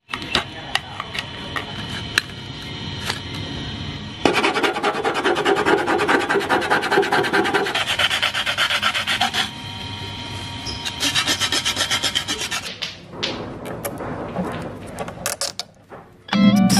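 Clear polycarbonate 1:10 RC car body shell being handled and cut with curved scissors: a dense run of fast crackling clicks and scraping of the thin plastic, coming in several stretches that stop and start, loudest about four seconds in.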